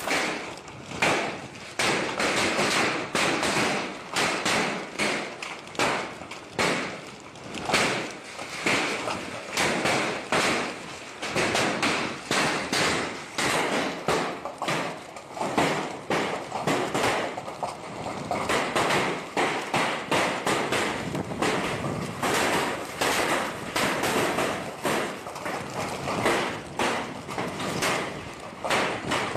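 Hailstorm: hailstones pelting the ground and nearby surfaces in a dense, irregular clatter of hard hits over a steady rushing noise. It cuts off suddenly at the end.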